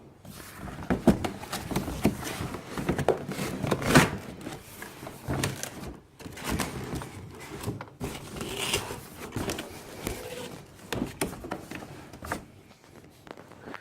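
Packaging and hard plastic toy parts being handled during unboxing: irregular rustling with scattered clicks and knocks.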